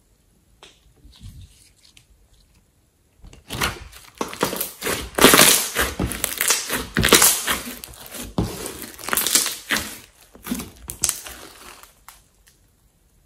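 Slime being squished, pressed and stretched by hand, a dense run of wet crackles and pops starting about three seconds in and dying away near the end.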